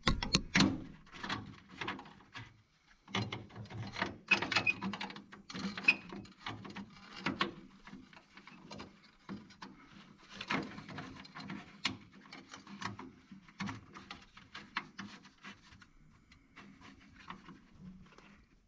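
Irregular small clicks, taps and rustles of hand-work: tools and small metal parts handled while mounting a light fixture behind a car's dashboard.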